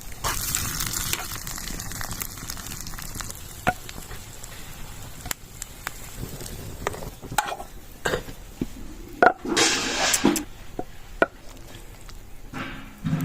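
Food frying and sizzling in a pan, with scattered clicks and knocks of a utensil stirring it and a louder burst of sizzling about ten seconds in.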